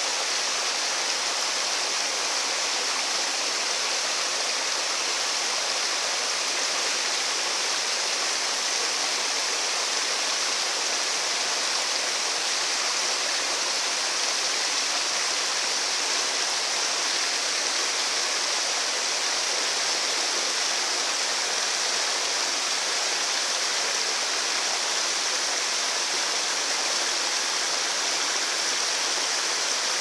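Small waterfall spilling down granite ledges into a pool: a steady, bright hiss of falling and splashing water that never changes.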